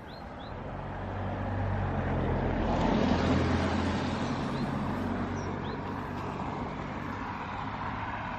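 A car driving past on the road. It is heard coming closer, is loudest about three seconds in, and then fades as it goes away.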